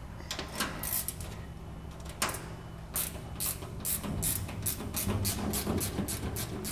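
Ratchet wrench clicking as the floor screws holding a vertical platform lift's front cover are backed out. The clicks are sparse at first and turn into a quick, even run of about four or five a second partway through.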